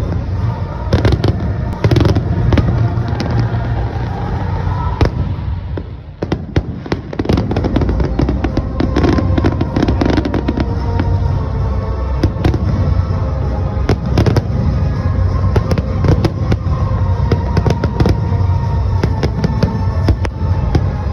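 Fireworks display: a dense, continuous run of sharp bangs and crackles over a low rumble, thinning briefly about six seconds in.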